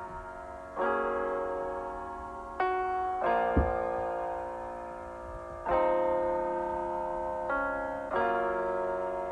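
Background music: slow piano chords, each struck and left to ring and fade before the next.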